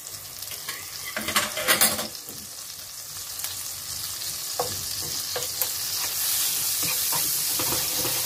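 Minced garlic sizzling in melted butter in a frying pan, the sizzle growing louder over the last couple of seconds. A short clatter comes one to two seconds in, and chopsticks scrape and tap in the pan near the end.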